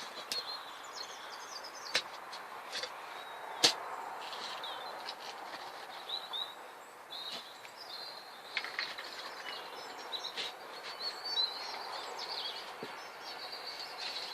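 Small birds chirping and twittering over steady outdoor background noise, with a few sharp knocks scattered through, the loudest about two and three and a half seconds in.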